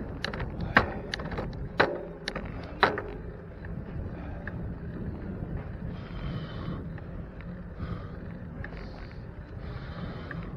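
Steady rumble of a moving bicycle with wind on the microphone, broken by three sharp knocks about a second apart and a few lighter ticks.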